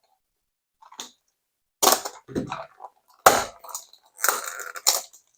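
Plastic and cardboard toy packaging being handled and opened: a series of sharp crackles and rustles, with a longer crinkling stretch near the end.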